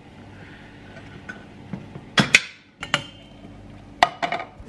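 Several sharp metallic clanks and knocks as a tin of black beans is emptied into a stainless steel saucepan, the tin knocking against the pan. The loudest come about two seconds in, with more near the end.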